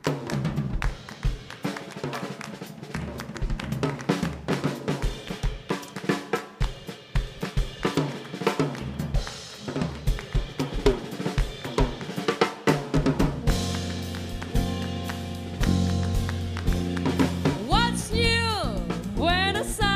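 Live band instrumental break: a drum-kit solo of snare, bass drum and rimshots, with the rest of the band coming back in with bass and chords about two-thirds of the way through. Near the end a melodic line with bending pitch enters over the band.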